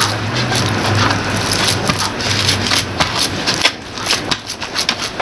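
Hands pressing and smoothing a raw minced-meat mixture in a metal baking pan: soft squishing and patting with small knocks against the pan, more frequent in the second half. A steady low hum runs under it and fades about three seconds in.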